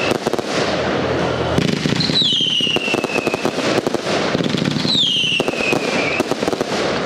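Aerial fireworks going off: dense crackling and popping from bursting crackle stars, with a whistling effect about every three seconds that drops in pitch over a second and a half.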